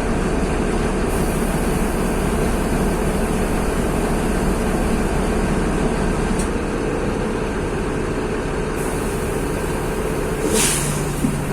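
Mercedes-Benz OF-1724 bus's OM-926 LA inline-six diesel engine running steadily, with a brief hiss near the end.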